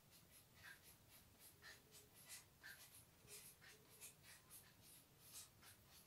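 Faint, quick strokes of a marker pen writing on a whiteboard, a couple of short scratches a second.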